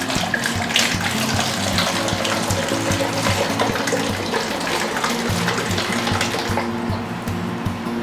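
Hydrogen peroxide (3%) being poured from a measuring cup through a funnel into a bottle, a running, splashing liquid sound that dies away near the end, over background music.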